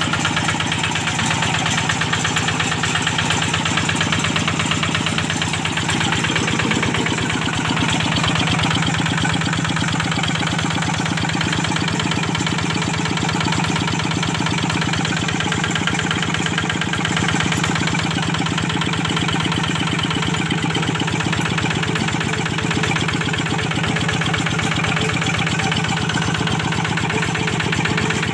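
Kubota diesel engine running steadily at an even speed, with a regular, rapid diesel knock.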